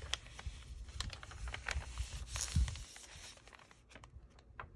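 Paper pages of a handmade junk journal rustling and crinkling as they are handled and turned, with small taps and clicks. A louder rustle with a soft thump comes about two and a half seconds in.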